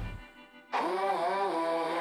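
Rock background music ending: the full band cuts off, and about two-thirds of a second in a final held note with a wavering pitch sounds and begins to fade.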